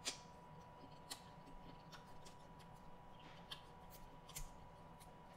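Quiet eating sounds from chewing boiled shrimp and peeling its shell by hand: about half a dozen soft, sharp clicks and smacks, roughly a second apart, the first the loudest.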